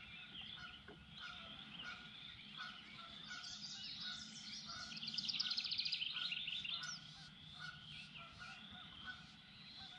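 Wild birds calling and singing, faint, with many short chirps and one rapid trill of repeated high notes about five seconds in, lasting around two seconds.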